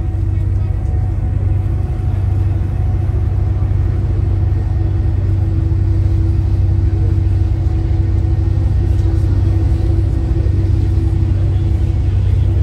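Tour boat's engine running with a steady low drone and a constant hum above it.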